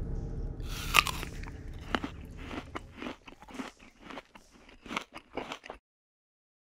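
A run of irregular crunching, crackling clicks, the loudest about a second in, over a low musical drone that fades away; all sound cuts off suddenly near the end.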